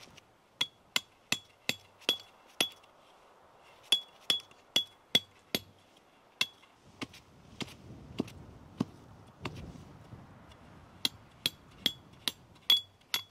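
Repeated sharp metallic strikes, each with a short high ring, like hammer blows on metal. They come in four runs of five or six, about two to three a second, with brief pauses between runs.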